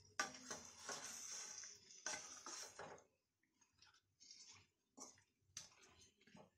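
Spatula stirring mango pieces through thick jaggery syrup in a kadhai: about three seconds of wet scraping and squelching that starts with a sharp click, then a few scattered light scrapes and taps against the pan.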